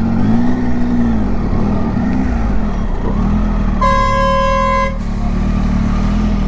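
Triumph Tiger 800's three-cylinder engine running as it is ridden, its pitch rising and falling with the throttle. About four seconds in, a horn sounds one steady blast of about a second.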